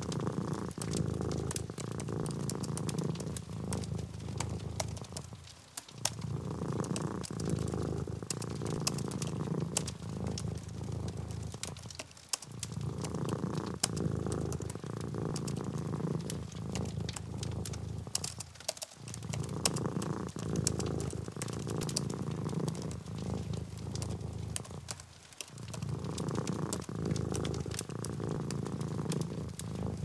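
A cat purring in long, even swells, each broken by a short pause about every six and a half seconds, over a running patter of light clicks from typing on a slim keyboard.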